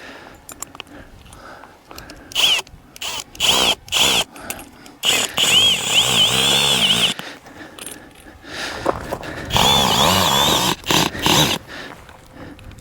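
A regular cordless drill driving a tent screw into the ground: several short trigger bursts, then two longer runs. The motor's whine wavers in pitch as it loads up.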